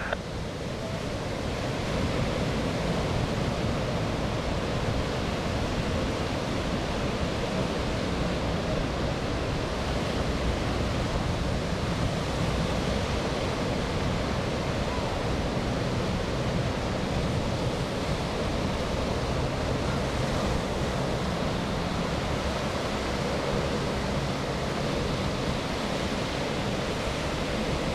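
Steady rushing noise of wind and surf, with the distant drone of a four-ship formation of SNJ Texans' Pratt & Whitney R-1340 radial engines blended into it.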